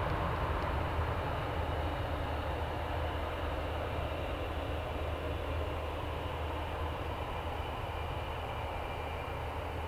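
Distant jet roar of a Panavia Tornado's twin RB199 turbofans, a deep steady rumble with a faint high whine on top, slowly fading.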